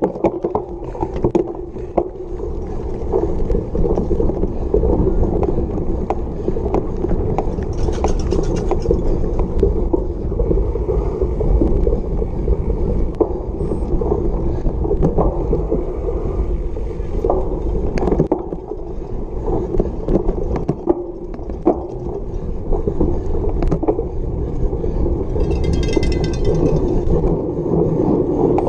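Cyclocross bike ridden hard over bumpy grass: continuous rumble from the tyres and the bike, with frequent rattles and knocks from the bike and camera mount. Near the end there is a brief high ringing.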